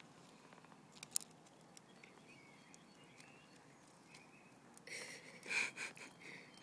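Quiet background hiss with one sharp click about a second in, then a few short bursts of rustling noise near the end.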